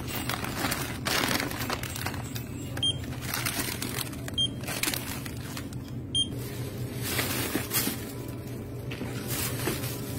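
A checkout barcode scanner gives three short beeps as items are scanned. Between them, snack packaging and a plastic carrier bag rustle and crinkle as the goods are handled and bagged.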